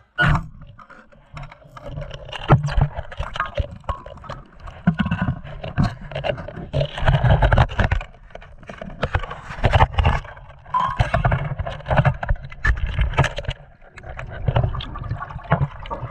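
Underwater sound picked up by a GoPro in its housing as a free diver swims and handles a speargun: irregular muffled rumbling and thumping of moving water, with scattered sharp clicks and knocks.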